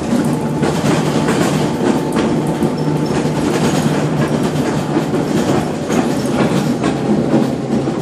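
Moving trolleybus heard from inside the cabin: steady running noise and a low hum, with frequent irregular rattles and knocks from the body and fittings.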